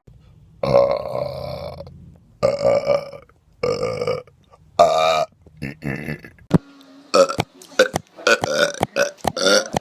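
A person burping loudly on command: about five long, pitched belches one after another, then a faster string of short bursts in the last few seconds.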